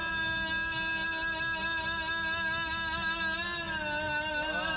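Live Iraqi folk music: a violin plays long held notes that glide gently between pitches and waver near the end, with an oud accompanying.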